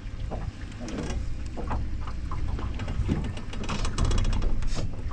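Wind buffeting the microphone, a steady low rumble, with scattered small knocks and a quick run of clicks near the end.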